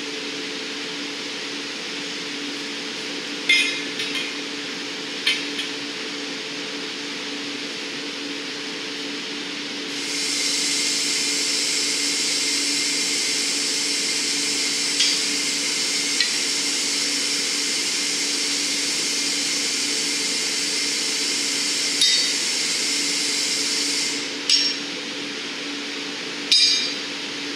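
Steady low hum of the glass shop's furnace and glory hole, with sharp metal clinks of blowpipes and tools against the steel bench, a few near the start and a few near the end. About ten seconds in, a loud even hiss starts and runs for about fourteen seconds before cutting off.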